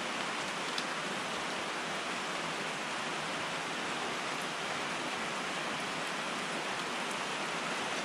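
Steady rain falling, an even hiss, with one faint tick about a second in.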